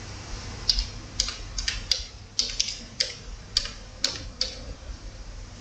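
A word being written out by hand: about a dozen short, scratchy writing strokes, two or three a second, stopping about a second before the end.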